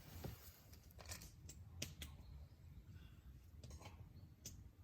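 Near silence with a few faint clicks and taps scattered through it.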